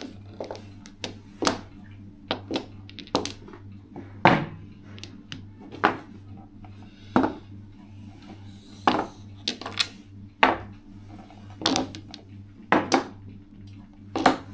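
Mahjong tiles clacking as they are set down and knocked together on the table: sharp, irregular clicks about once a second, over a steady low hum.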